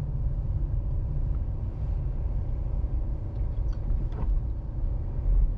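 Steady low rumble of a car driving slowly, engine and tyre noise heard from inside the cabin.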